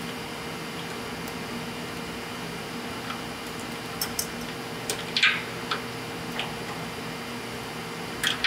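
A steady low hum, with a few light clicks and a short scrape about four to six seconds in as thin steel mechanic's wire is handled against the steel plow bracket on the truck frame.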